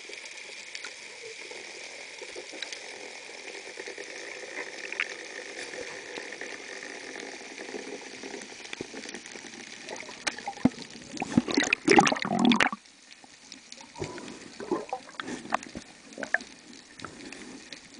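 Underwater sea ambience heard through a diver's camera: a steady hiss with faint scattered clicks. Around eleven to twelve seconds in come a couple of seconds of loud water splashing and bubbling near the surface, then smaller splashes.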